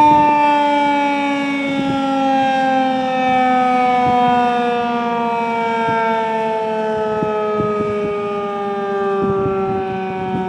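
Federal Signal 2001-DC roundback tornado siren winding down, its tone falling slowly and steadily in pitch as the rotor coasts to a stop.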